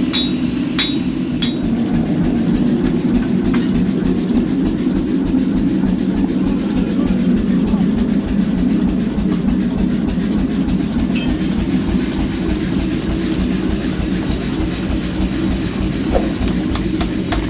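A machine running with a steady hum and a fast, even clatter, with a few separate metal knocks in the first second or so.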